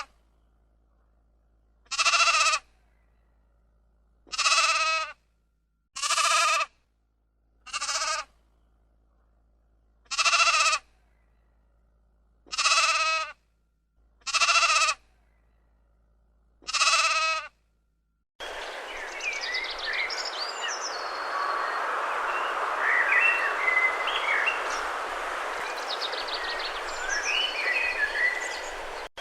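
A sheep bleating, eight separate calls about two seconds apart with silence between. About 18 seconds in, this gives way abruptly to a steady outdoor hiss with birds chirping.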